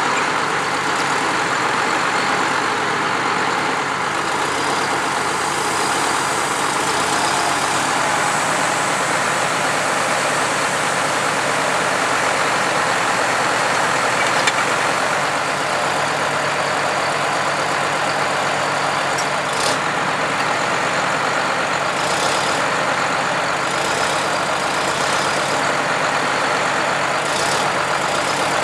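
Diesel engines of a Clark Michigan wheel loader and a farm tractor running steadily at idle, with a few brief high-pitched noises in the second half.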